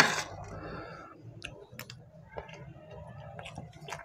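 A metal spoon scraping and scooping rice pulao on a serving tray: a rustling scrape in the first second, then scattered light clicks and taps.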